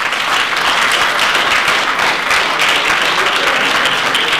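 Crowd applauding: dense, steady clapping from a large audience.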